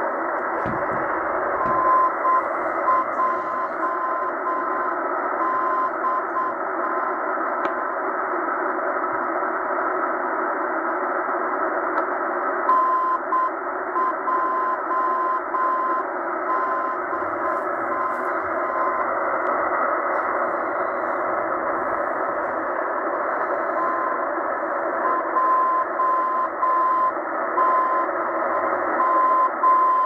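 Morse code (CW) signal on 4251 kHz received on a Tecsun H-501x shortwave radio in upper sideband mode: a keyed beep tone of dots and dashes over steady band hiss and static. An unidentified station repeats the letters NJDM in three groups of several seconds each, with pauses between. The keying is not clean.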